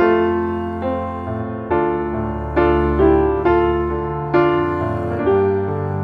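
Background music: a slow piano melody, with a new note or chord struck about once a second and left to fade.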